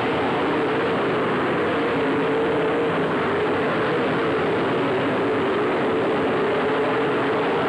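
Dirt late model race cars' V8 engines running together on the oval in a steady drone, their pitch wavering slightly.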